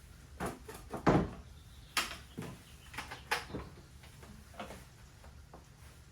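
A series of irregular sharp knocks and clunks, about ten in all, the loudest just after a second in and at two seconds, over a low steady hum.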